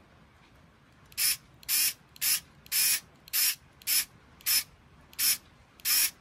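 Skil 4V cordless screwdriver run in about nine short bursts, roughly two a second, starting about a second in, as it drives a screw back into a metal case.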